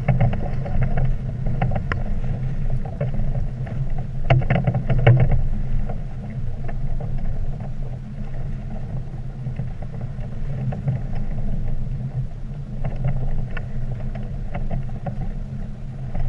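Wind buffeting the microphone on a small sailing catamaran, with the loose sail fluttering and short clicks and rattles from the rigging and fittings, most about four seconds in and again near the end.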